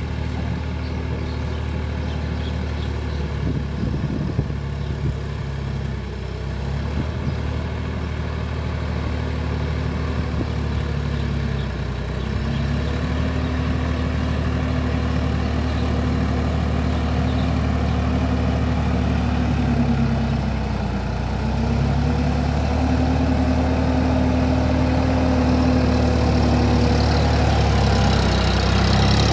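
Sonalika tractor's diesel engine running steadily under load while it pulls a rotary tiller through wet, muddy soil. It grows louder as the tractor comes closer, and its note sags briefly twice along the way.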